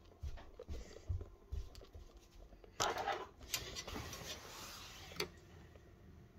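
Soft footsteps and the rustle of a handheld phone being carried indoors, with a louder swish about three seconds in and a click near the end.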